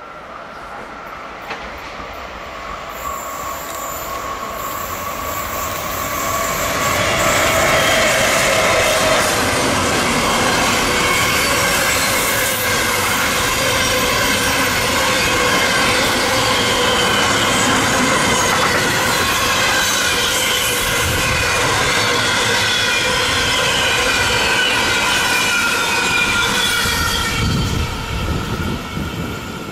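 A train approaching and passing close by. It grows louder over the first several seconds, then runs steadily with the rush of wheels on the rails and several held whining tones over it.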